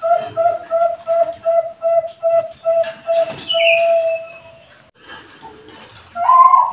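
Zebra dove (Bangkok-bred perkutut) cooing: a fast run of short, even notes, about four a second, ending in one long held note. After a pause, the next phrase opens with a higher note near the end, and a brief falling whistle sounds over the long note.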